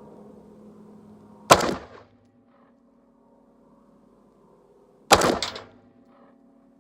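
Two gunshots from a Daniel Defense Mk18 5.56 AR pistol, about three and a half seconds apart. Each is a sharp crack that dies away in about half a second.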